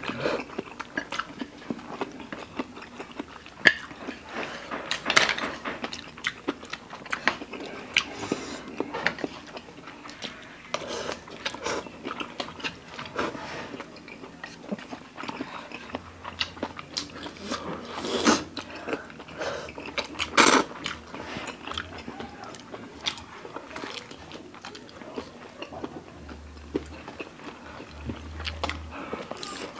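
Close-miked eating of spicy instant noodles and sausage: chewing, slurping and biting, with many short wet mouth smacks and a few louder slurps.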